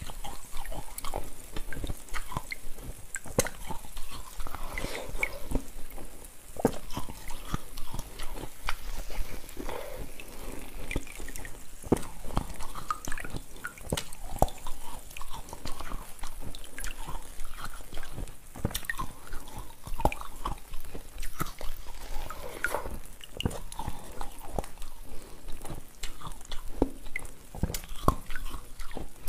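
Crunching bites into a lump of frozen cola ice, with many sharp irregular cracks, and melted cola dripping into a bowl below.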